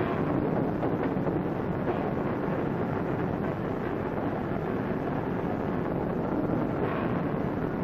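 Steelworks din as glowing hot steel is worked in a rolling mill: a steady, dense mechanical noise with no distinct beats, on an old film soundtrack.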